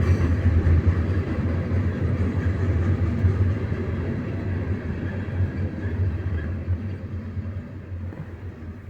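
Diesel freight train passing close by: a steady low diesel rumble with rolling noise, fading away over the last few seconds.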